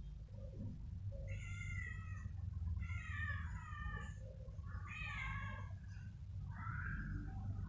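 A cat meowing: three calls in a row, each about a second long, then a fourth, rougher call near the end, over a steady low rumble.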